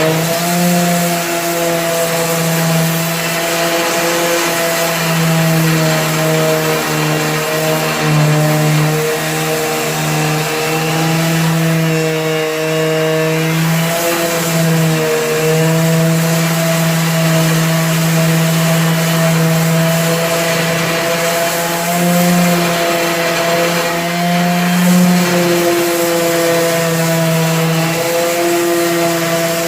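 Electric power sander running continuously on wood: a steady motor hum that wavers slightly in pitch, over the hiss of the abrasive on the surface.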